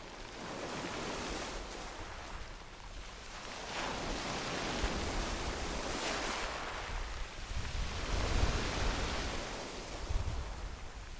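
Sea waves breaking and washing up a pebble beach, the surf swelling and falling back every couple of seconds.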